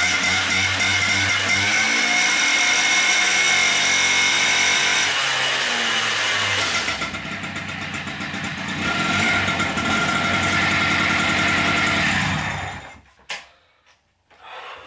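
Peugeot 103 moped's small two-stroke engine running and being revved, its pitch falling and then climbing again with the throttle. The engine stops about two and a half seconds before the end, leaving a few faint knocks.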